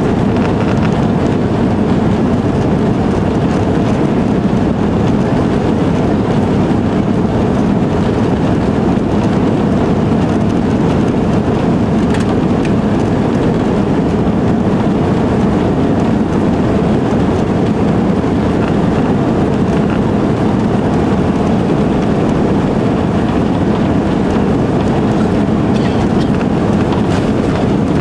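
Cabin noise of an Airbus A330-300 accelerating on its takeoff roll: its Rolls-Royce Trent 700 engines at takeoff thrust and the rolling of the airframe make a loud, steady rumble.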